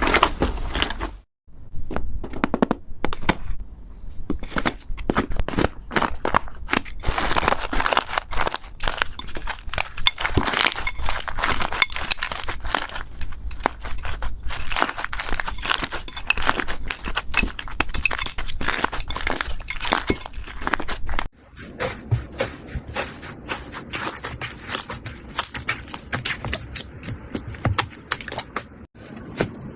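Slime being squeezed and pressed by hand, with a dense run of crackling and popping clicks. It breaks off briefly about a second in, and about two-thirds of the way through it turns quieter and sparser.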